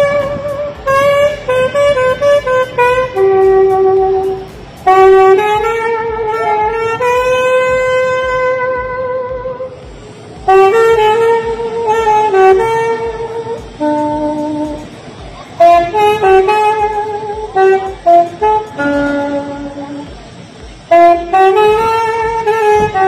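A saxophone playing a slow melody of held notes that slide between pitches, in phrases with short breaks between them.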